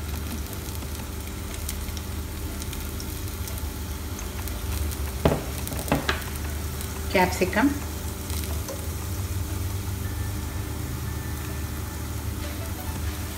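Batter-coated bread slice frying in a hot oiled nonstick pan: a steady sizzle, with a couple of light taps about five and six seconds in.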